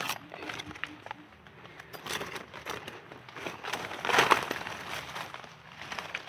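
Dry forest leaf litter rustling and crackling in irregular small snaps, with a louder crunch about four seconds in.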